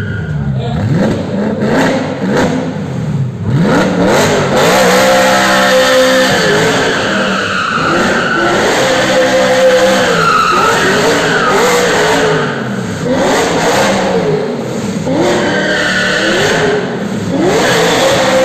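BMW coupe doing drift circles. Its engine revs up and drops back over and over, with tyres squealing at times.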